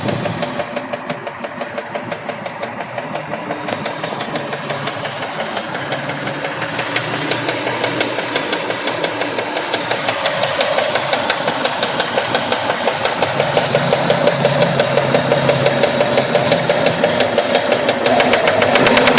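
Mitsubishi 3000GT's 3.0 L V6 running with a fast, even ticking knock in time with the engine, getting gradually louder. The rod bearings have been replaced and are within spec, and the owner suspects a collapsed lifter.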